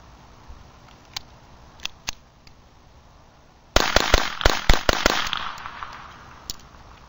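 Beretta 21A pistol firing .22 Long Rifle CCI Mini-Mag hollow points: a rapid string of about half a dozen sharp shots in just over a second, about halfway through, with an echo trailing off afterwards. A few faint clicks of gun handling come before it.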